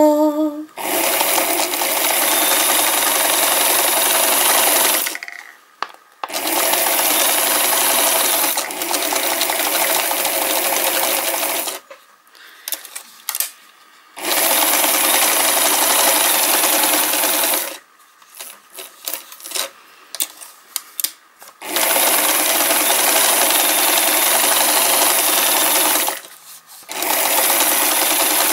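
Electric sewing machine zigzag-stitching through paper. It runs steadily in stretches of four to six seconds, stopping briefly between them, and the stops hold scattered light clicks as the page is turned.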